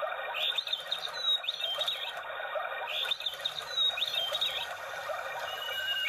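Novelty singing bird clock playing recorded birdsong through its small speaker: short groups of chirps and quick whistled glides, near the start and again about three seconds in, over a continuous chattering background.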